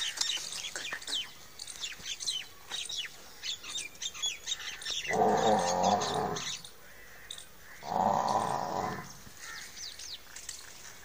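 Small birds chirping in quick, repeated falling calls. About five and eight seconds in come two loud, rough, low sounds, each a little over a second long.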